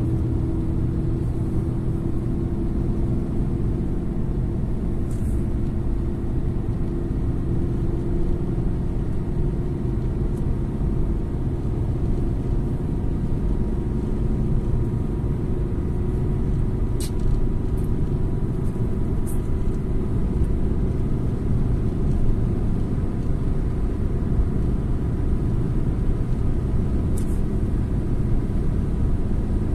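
Steady low rumble of a car cruising at highway speed, heard from inside the cabin: engine, tyre and wind noise, with a few faint ticks along the way.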